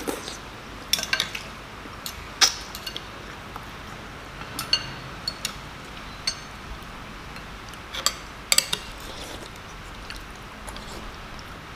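Metal spoons and forks clinking against ceramic soup bowls as several people eat: scattered sharp clinks with a short high ring, about ten spread across the stretch.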